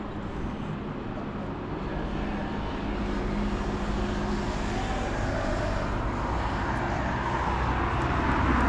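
Road traffic: a motor vehicle's engine and tyres passing close by, the low rumble growing louder toward the end.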